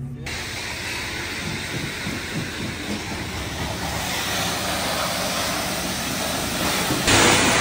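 Pressure washer spraying water onto a truck, a steady hiss that gets louder and brighter about seven seconds in.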